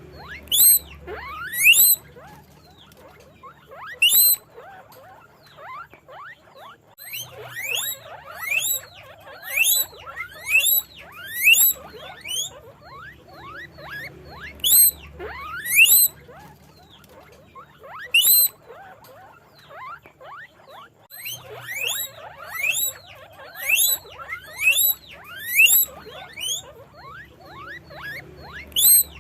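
Guinea pigs squeaking (wheeking): repeated short, high-pitched calls that rise in pitch, coming in quick clusters of several calls separated by brief pauses.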